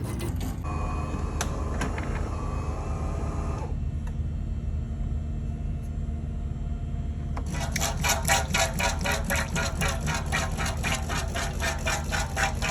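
De'Longhi Magnifica Evo espresso machine running with a steady mechanical hum during its cleaning cycle, with a few light clicks early on. About halfway in, a fast, even pulsing of several strokes a second joins the hum, typical of the machine's pump pushing water through.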